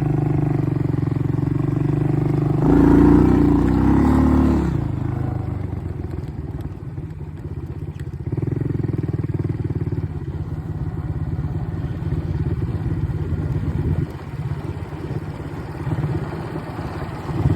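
ATV engine running while being ridden over a bumpy road. It revs louder for about two seconds, around three seconds in, then settles back to a lower, uneven run.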